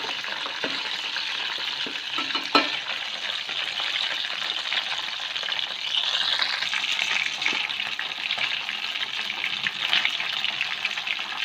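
Fish pieces coated in chilli, cornflour and masala frying in hot oil in a pan, with a steady sizzle and crackle. A few light knocks come in the first few seconds, the sharpest about two and a half seconds in.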